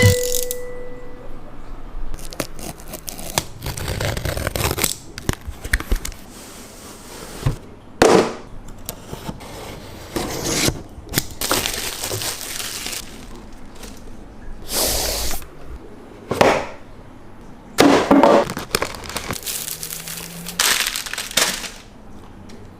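Product packaging being opened and handled by hand: irregular rustling, scraping and tearing noises in uneven bursts, a few louder than the rest.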